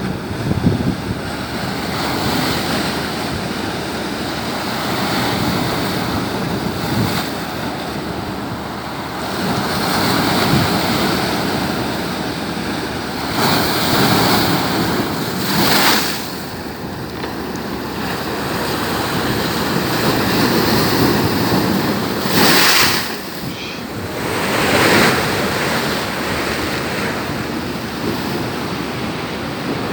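Rough surf breaking against the shore in a storm, with strong wind buffeting the microphone. The noise swells and ebbs, with several louder wave crashes about halfway through and twice more later on.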